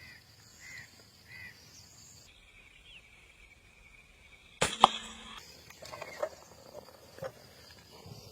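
An air rifle shot a little past halfway: a sharp crack, then a second, louder crack about a quarter second later. Short bird chirps come before and after it, three in quick succession near the start.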